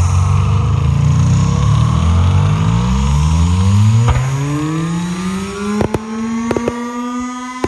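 A loud, low engine-like drone that rises steadily in pitch over several seconds and then fades. Sharp firework cracks start near the end and come more and more often.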